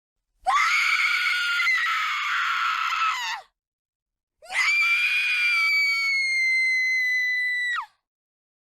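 A woman screaming in terror: two long screams of about three seconds each, with a short pause between. The second holds a steady high pitch and drops off sharply at the end.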